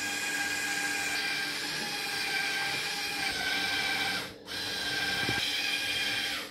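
Electric hand mixer running at a steady speed with a high motor whine, whipping cake cream. The sound drops out briefly about four seconds in, then carries on.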